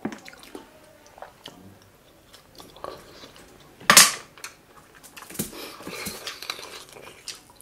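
Close-up eating sounds from a seafood boil: chewing, lip-smacking and finger-sucking, with a metal spoon clicking against a glass sauce bowl. One loud, sharp sound stands out about four seconds in.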